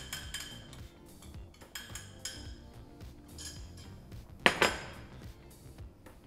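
A metal spoon scraping and tapping against a bowl, with small clinks of cutlery. About four and a half seconds in, two loud sharp metallic clinks ring out as kitchen utensils are handled. Background music plays under it.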